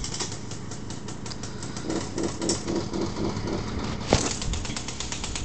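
Small engine of a children's mini quad bike running in a rapid, even putter, with a sharp knock about four seconds in.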